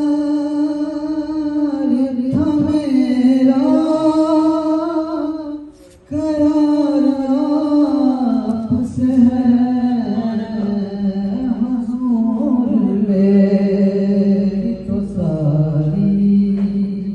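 A man singing a naat, a devotional poem in praise of the Prophet, solo into a microphone without instruments, in long held, ornamented notes. He breaks off briefly about six seconds in, and his voice drops to a lower held note near the end.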